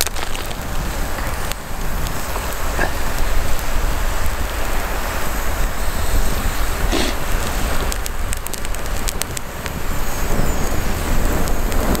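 Small campfire of wet twigs burning: a steady hiss with a few faint crackles, over a low rumble. The hiss comes from the wood still being wet.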